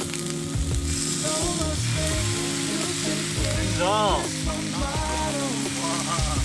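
Food sizzling as it fries in a pan, over background music.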